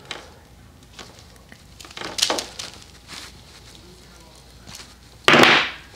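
Handling of car wiring and small fittings: soft rustles and light clicks, with a brief louder rustle about two seconds in and a short, loud hissing burst near the end.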